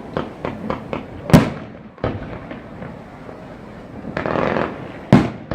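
Fireworks display: a quick run of sharp cracks, then a loud bang about a second and a half in. About four seconds in comes a half-second crackling burst, then another sharp bang near the end.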